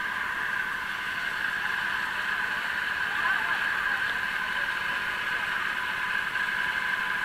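A steady, even drone that does not change, with a few faint voices from the gathered crowd.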